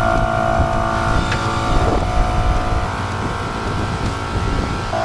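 MORRFlate TenSix portable air compressor running steadily under load, pumping air through a four-way hose kit to inflate a Jeep's tyres.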